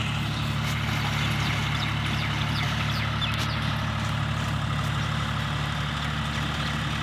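Tractor engine running steadily while ploughing a field.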